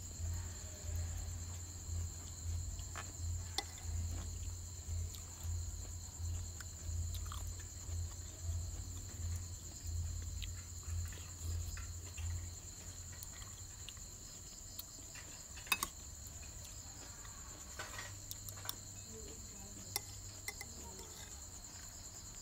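Crickets chirping steadily, with a few sharp clinks of a metal spoon against a bowl. A low hum pulsing about one and a half times a second runs under it and drops away about halfway through.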